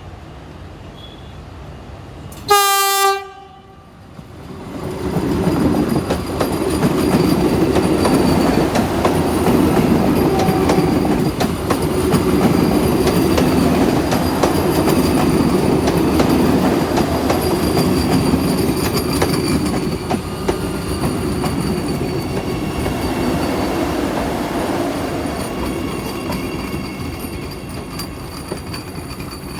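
A train horn sounds once in a short, loud blast. A couple of seconds later a train passes close by with its wheels clattering over the rail joints and a faint high squeal. The sound builds up, holds loud for about twenty seconds, then fades near the end.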